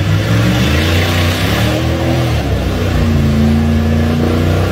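GMC full-size pickup's engine revving hard under load as the truck pushes through deep mud and water. The engine note dips about two seconds in, then climbs again and holds.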